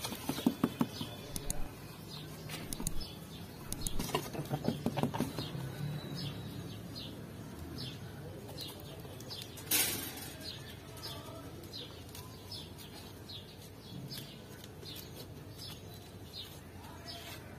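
Small birds chirping again and again, with two spells of rapid knocking and rustling early on from the goats shifting and nursing in the pen, and one short loud burst of noise about ten seconds in.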